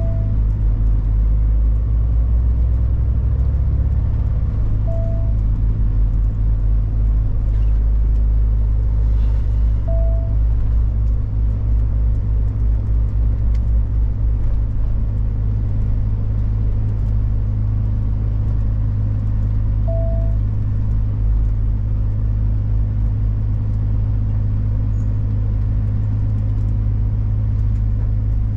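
Big truck's diesel engine heard from inside the cab, a steady low drone as the lorry drives. A short mid-pitched beep sounds every five to ten seconds.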